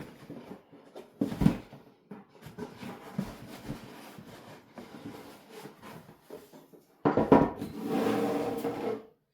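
A cardboard RC kit box being opened and its contents handled: scattered knocks and rubbing, then a louder scraping rub lasting about two seconds near the end.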